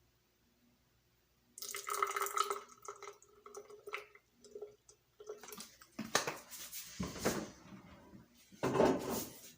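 Water pouring and splashing in short bursts, with some light clatter, around a drip coffee maker. It is near quiet for the first second and a half, then a stretch of pouring follows, then several shorter splashes, the loudest near the end.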